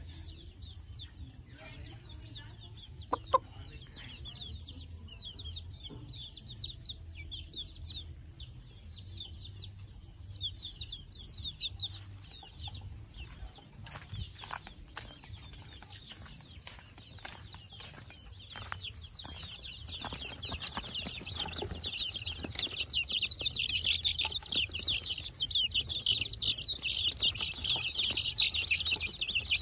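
Chicks and young chickens peeping in short, high calls. The calls are sparse at first and swell into a dense, continuous chorus in the last third. A few knocks and rustles come around the middle.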